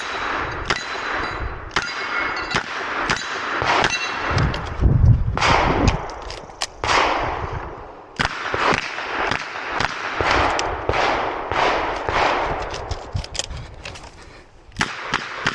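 Smith & Wesson 929 9mm revolver firing a fast string of shots, with steel targets ringing when hit near the start. There is a brief lull about 8 seconds in, and a quieter stretch before the shots pick up again near the end.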